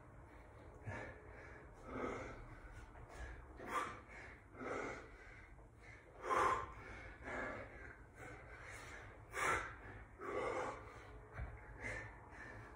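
A man breathing hard under exertion during a bodyweight workout, with about one loud breath a second and a few sharper exhales.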